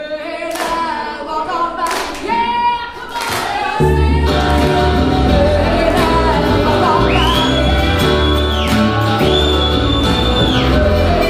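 Live bluegrass band of banjo, mandolin, acoustic guitar and upright bass with singing. Singing opens it, and about four seconds in the full band comes in with a strong, steady bass line.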